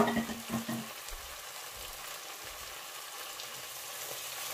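Tomato-and-pepper stew sizzling steadily in a frying pan, with a few knocks in the first second as the boiled eggs settle and the spoon touches the pan.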